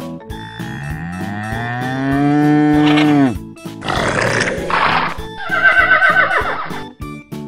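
Cartoon animal sound effects over children's background music with a steady beat: a long bull moo that rises and then falls, then a short rough roar, then a horse whinny near the end.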